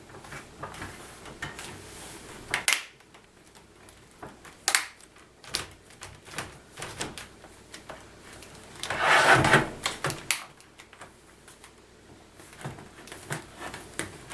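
Plastic LCD bezel of an Acer Aspire 5534 laptop being pressed back onto the screen lid, its clips snapping into place in scattered sharp clicks. About nine seconds in there is a louder rubbing of plastic lasting about a second.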